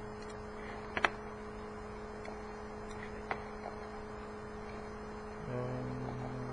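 Steady electrical hum with a few sharp mouse clicks, one about a second in and another past three seconds. Near the end a lower hum joins in for about a second and then cuts off.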